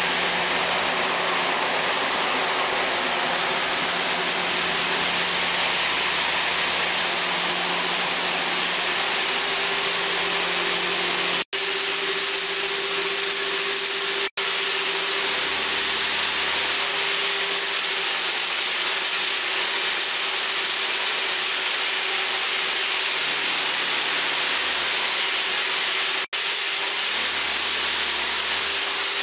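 Steady machinery noise of a food-processing line, a loud even hiss over a low hum, broken by three instant drop-outs.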